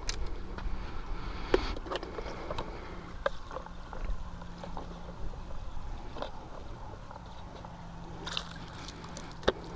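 Strong wind rumbling on the microphone over water sloshing, with scattered sharp clicks and knocks, the loudest about a second and a half in and another near the end.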